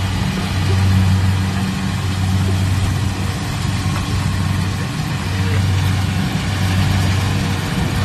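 Kubota combine harvester's diesel engine running steadily with a constant low hum, its machinery working as it shells corn.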